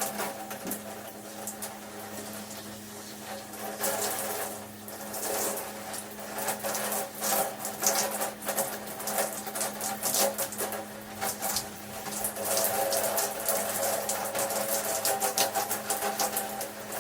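Shower water running and splattering unevenly, over a steady low hum.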